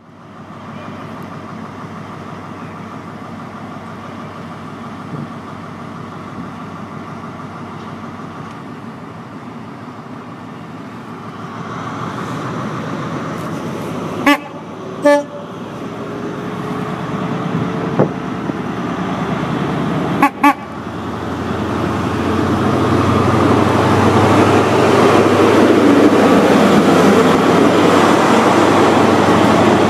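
Class 43 HST power car with an MTU diesel engine running as the train comes along the platform, the engine and wheel noise growing louder through the second half. A few short horn toots sound about halfway through.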